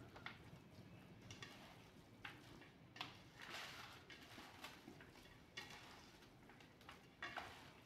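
Faint, irregular wet rustles and soft clicks of bare hands kneading fish pieces in a wet besan-and-flour marinade in a steel plate.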